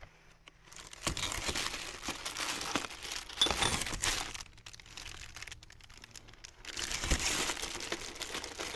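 Packaging crinkling as it is handled, in two spells with a short pause between.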